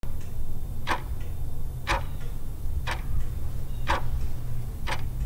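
Countdown-timer clock-ticking sound effect: a sharp tick about once a second, with a fainter tick between some of them, over a steady low hum.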